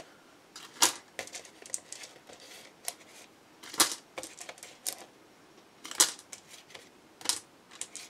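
Small plastic dice clicking against each other and onto a tabletop as they are handled and counted: a few sharp clicks, one every second or two, with lighter taps in between.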